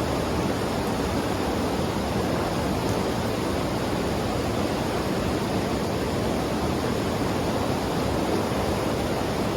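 Fast-flowing mountain river rushing steadily, a constant roar of water without change.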